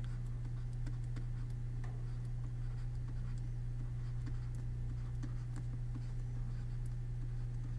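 Pen stylus writing on a tablet: light scattered ticks and scratches as a word is handwritten, over a steady low hum.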